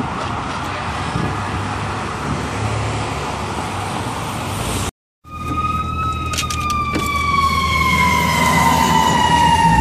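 Emergency-vehicle siren and diesel truck engines in city traffic. For the first five seconds a siren sounds faintly in the distance over street noise; after a short dropout an EMS rescue truck passes close by, its siren sounding as one loud tone that slowly falls in pitch over a low engine hum, with a few sharp clicks.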